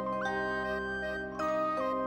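Background music: a slow, gentle melody of held notes over sustained chords.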